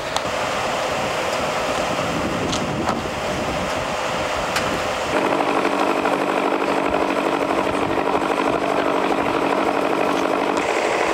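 Patrol boat's engine running at idle, a steady, even hum that becomes clearer about five seconds in.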